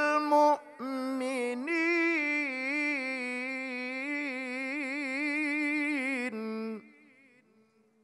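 A male qari chanting Quran recitation in the melodic tilawah style through a microphone. After a short break under a second in, he draws out one long, ornamented phrase with a wavering pitch, drops to a lower note near the end, and fades out about seven seconds in.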